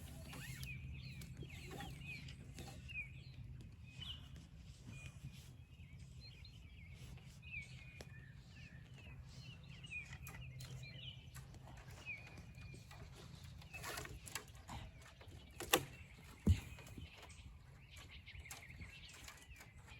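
Small birds chirping again and again over a steady low hum. Two sharp knocks come about half a second apart near the end.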